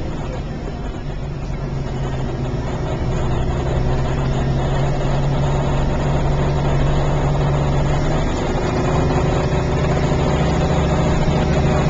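Passenger train running, heard from inside the carriage: a steady low engine hum over the rumble of the ride. The pitch of the hum shifts slightly about eight seconds in.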